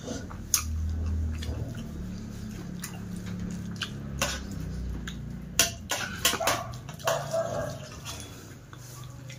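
Fingers mixing and scooping food on a steel plate, with scattered sharp clicks and taps of the hand against the metal. A low rumble runs under the first two seconds.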